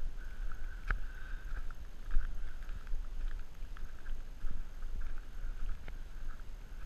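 Active volcanic crater of Mount Yasur giving off a steady low rumble, with a couple of sharp clicks.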